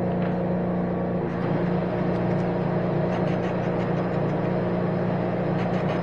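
Giddings and Lewis Model 25 horizontal boring mill running, its spindle turning a face mill on a light skim cut across the face of a cast-iron exhaust manifold: a steady machine hum with faint scattered ticks.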